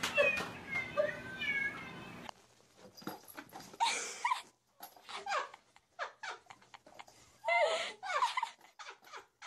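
Domestic cat meowing in short, high calls, then after a cut a series of short cries mixed with bursts of rustling.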